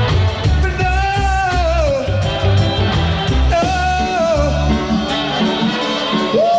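Live reggae band playing, with a singer's voice sliding between notes over a heavy bass line. The bass and drums drop out about five seconds in, leaving the voice and the higher instruments, and a long gliding sung note starts near the end.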